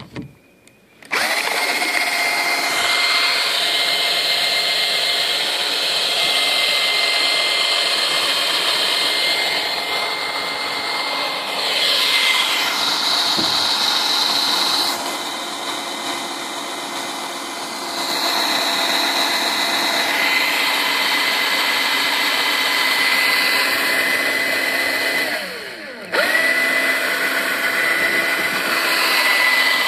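Old 7.2-volt cordless drill running steadily with its trigger held, driving an all-thread shaft and a plastic trolling-motor prop in the water as a makeshift outboard, on batteries that are pretty much worn out. It starts about a second in, and near the end it stops for a moment and starts again.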